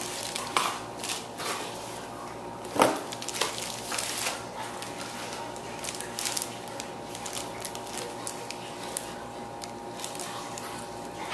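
Toy packaging and plastic parts being handled: crinkling plastic and light clicks and taps, loudest about three seconds in, then quieter rustling.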